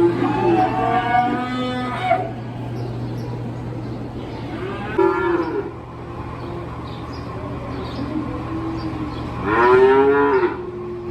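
Cattle mooing in a stockyard, several long calls: overlapping ones at the start, another about five seconds in, and the loudest near the end, over a steady low hum.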